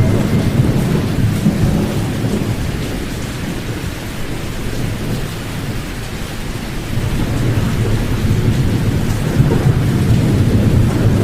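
Deep rumbling sleep noise with the high frequencies cut away, like steady rain with a distant thunder rumble. It eases a little in the middle and swells back toward the end.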